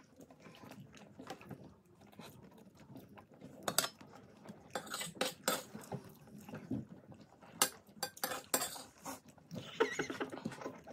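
People eating a meal: chewing and mouth sounds with scattered clinks and taps of cutlery on dishes.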